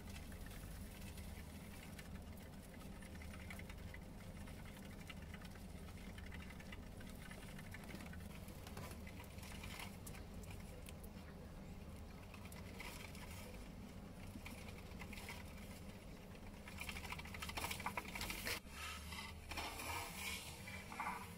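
Dwarf hamsters' paws pattering and scrabbling on a green plastic exercise wheel as they run in it, with light clicks and rattles of the wheel over a steady low hum. The scrabbling and rattling grow louder and busier near the end.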